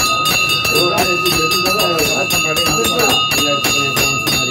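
Temple bell rung rapidly and without pause, its ringing tones held steady under the repeated strikes, as is done during the lamp offering (aarti). Voices of a crowd mix underneath.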